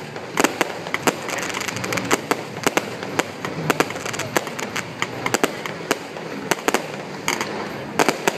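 Aerial fireworks bursting in an irregular run of sharp bangs and pops, several a second, with a quick cluster of bangs near the end.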